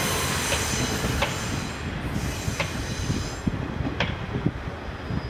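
KiHa 48 diesel railcar train running away over station pointwork. Its wheels clack sharply over rail joints four times, about once a second, over a steady rumble and hiss that thins out about three and a half seconds in as the train draws off.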